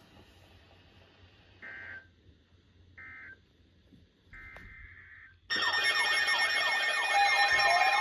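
Three short, faint data bursts of an EAS/SAME alert header for a tornado warning. About five and a half seconds in, several weather radios and alert receivers go off at once: a loud, sudden mix of beeping tones and rising-and-falling alert tones.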